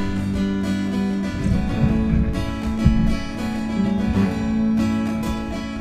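Background music: strummed acoustic guitar.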